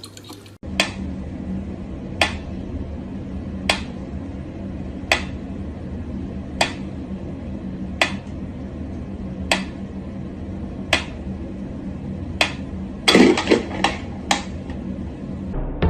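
Sharp clicks repeating evenly, about one every second and a half, over a steady hum, with a brief burst of clatter about thirteen seconds in.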